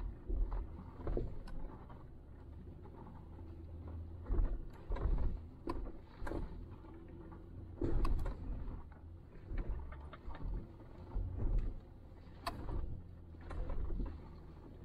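Jeep Gladiator crawling over a rough, rocky off-road trail: a steady low engine and drivetrain rumble with irregular knocks, clunks and rattles as it jolts over the ground. The heaviest jolts come about four and a half and eight seconds in.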